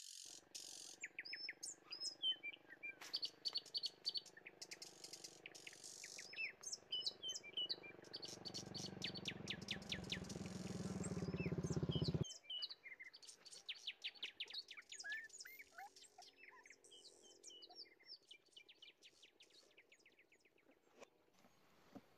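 Small birds chirping continuously in quick, repeated notes. Under them a motor vehicle's engine grows steadily louder and cuts off abruptly about twelve seconds in.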